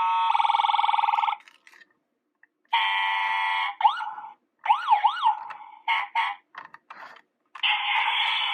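Road Rippers toy ambulance playing its electronic siren sound effect through a small speaker, in several bursts. It starts with a steady buzzy blare, goes quiet for about a second, then blares again and turns into rising-and-falling wails. A few clicks come before it resumes near the end.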